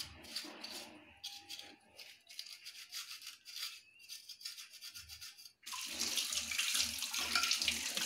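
A scrub pad scouring a brass oil lamp in quick repeated rubbing strokes. About two thirds of the way through, the kitchen tap is turned on and water runs steadily over the lamp as it is rinsed.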